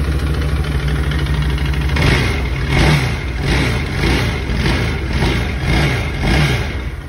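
Arctic Cat 1000cc ATV engine idling, then revved in about seven quick blips before settling back to idle. It is in gear, but the quad does not move: the engine runs but the drive is not taken up, which turns out to be a failed clutch.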